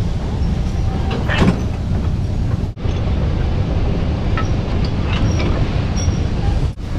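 Open narrow-gauge railroad car rolling along the track: a steady low rumble with faint clicks and squeaks of wheels and couplings. It breaks off for an instant twice, about three seconds in and near the end.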